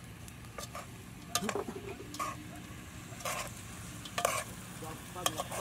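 Metal spoon stirring in a cooking pot: a handful of short scrapes and clicks over a low steady background.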